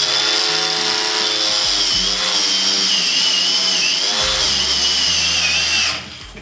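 Stark CAG 1800 cordless angle grinder running a wire cup brush against rusty steel angle: a high whine over harsh scratching, the whine sagging in pitch as it is pressed harder. Near the end the motor cuts out abruptly as its overload protection trips under heavy pressure.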